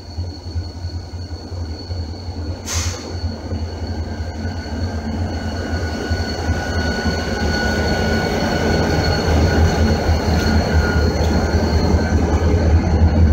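Diesel freight locomotives approach and pass at slow speed, their engine rumble growing steadily louder as they near, with a thin steady high whine over it. A brief hiss comes about three seconds in.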